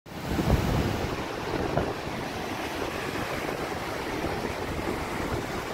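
Waves breaking and washing up the beach, with wind buffeting the microphone in gusts.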